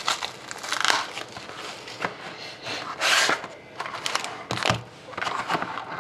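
A cardboard trading-card box and its plastic wrapping handled: irregular crinkling and scraping as the box is unwrapped and slid open, loudest a little past halfway.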